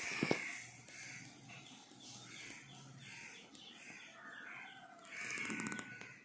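Birds calling repeatedly in the background, one call after another, the loudest about five seconds in. A short knock sounds just after the start.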